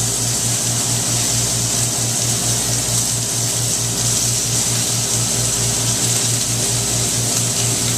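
Steady machine hum, pulsing evenly about five times a second, under a constant high hiss.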